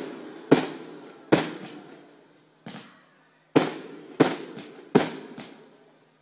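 Aerial firework shells bursting one after another: about six sharp bangs at uneven gaps, each with a rolling echo that dies away.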